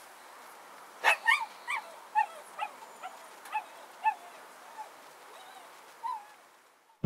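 Dog barking in a series of short, high-pitched yelps, about a dozen in quick succession and loudest at first, over a faint steady hiss.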